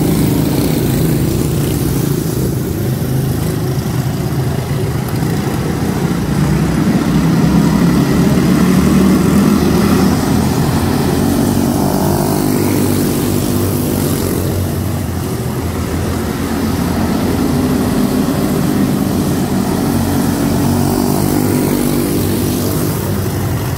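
A pack of quarter midget race cars with Briggs & Stratton Animal single-cylinder four-stroke engines running together on a dirt oval, loud and steady, their engine notes overlapping as the cars circle.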